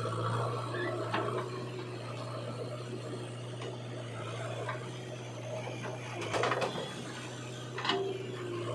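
A small motor running steadily with a low hum, with a couple of short rattling bursts near the end.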